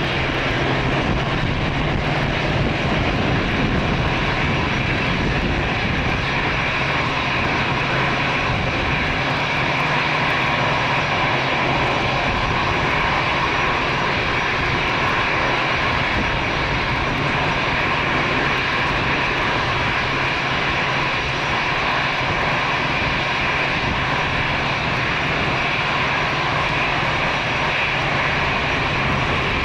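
Airbus A321's twin jet engines running at taxi power as the airliner rolls close by: a steady whine over a low rumble.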